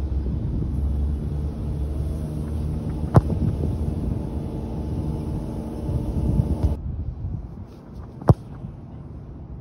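Two sharp thumps of a football being kicked off a tee, about three seconds in and again near the end, over wind noise and a steady low hum.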